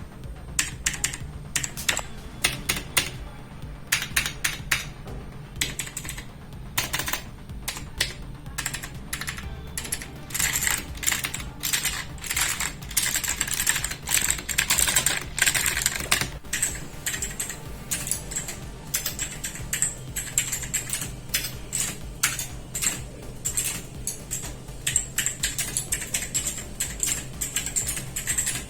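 HP GK100 keyboard's clicky blue mechanical switches being typed on for a click test. It starts with single key presses spaced apart, then turns to rapid continuous typing about ten seconds in.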